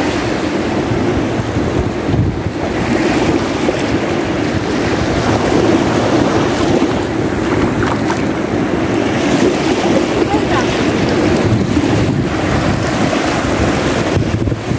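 Wind buffeting the microphone over the steady wash of small surf waves breaking on the shore.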